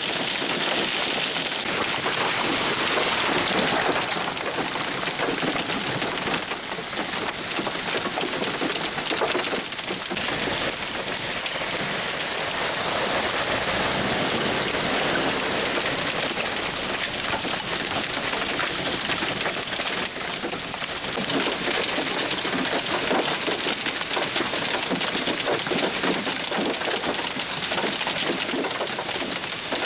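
Heavy hail of about one-inch stones pouring down, a dense, continuous rattle of countless small impacts on the ground and surroundings.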